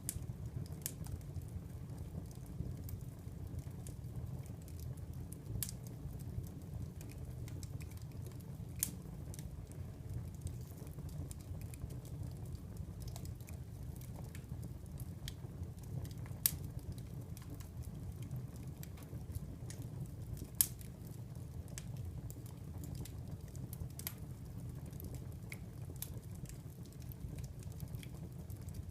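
Wood fire burning in a fireplace: a steady low rumble of flames with irregular sharp crackles and pops, a few louder snaps scattered through.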